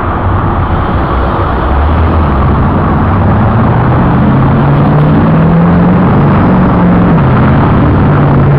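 A motor vehicle's engine running loud and close, with steady road or traffic noise. Its pitch climbs slightly and then drops about seven seconds in, as when a vehicle accelerates and then shifts or eases off.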